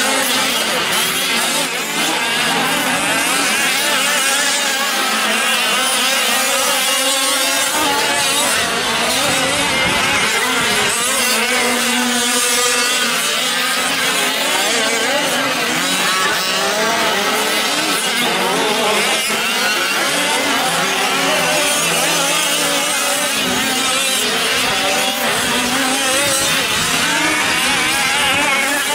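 Several 1/5-scale gas RC trucks' small two-stroke engines running together, revving up and down in overlapping, wavering pitches as the trucks race.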